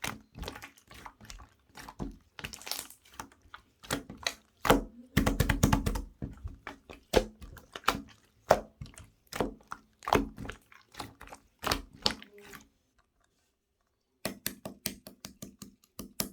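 Green pearl slime being pressed and squished by hand, giving irregular sticky clicks and pops with a heavier squelch about five seconds in. It pauses briefly past the middle, then resumes with a quick run of clicks.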